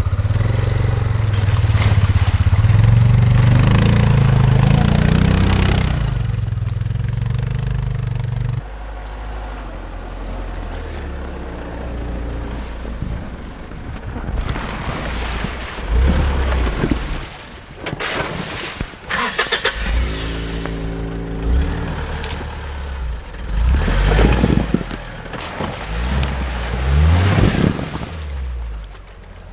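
Off-road vehicle engines working hard. A loud low engine rumble runs for the first several seconds and changes abruptly about 9 s in. After that the engines rev up and fall back in repeated spurts.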